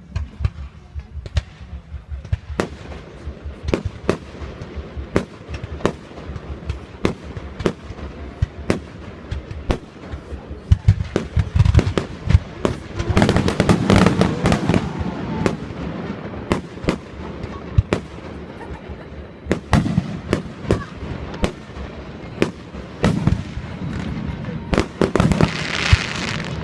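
Fireworks display: a long run of aerial shell bursts going off in quick succession, each a sharp bang, thickest about halfway through and again near the end.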